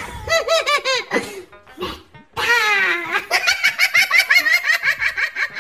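High-pitched laughter in rapid 'ha-ha' pulses. It breaks off briefly about two seconds in, then comes back as a faster, higher run.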